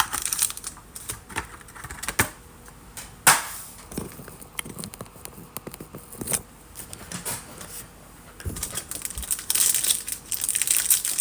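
A trading-card pack and its box being handled and torn open: scattered sharp clicks and taps, then, from about eight and a half seconds in, steady crinkling of the pack wrapper.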